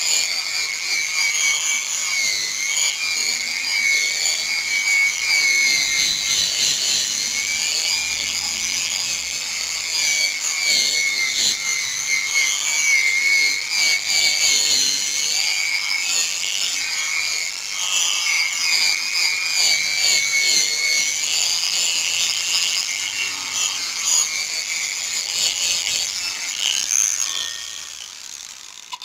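Handheld electric drill spinning a sanding disc on a yellow backing pad against a wet plastic headlight lens: a steady high whine that wavers in pitch as the pad is pressed and moved, winding down near the end. This is the last, finest-grit wet-sanding step that takes the yellowed oxidation off the lens.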